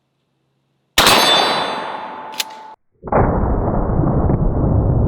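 A 12-gauge shotgun shot of triple-aught buckshot striking a steel target, the steel ringing with a bright metallic tone that fades over about two seconds. The ringing cuts off abruptly, and a steady low rushing noise follows.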